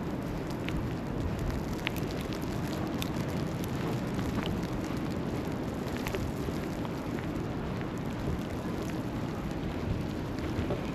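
Steady low rumble of city street noise under falling snow, with a few faint scattered ticks.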